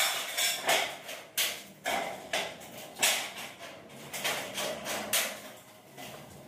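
Irregular sharp metal knocks and clanks, about one or two a second, from work on galvanized steel stud partition framing.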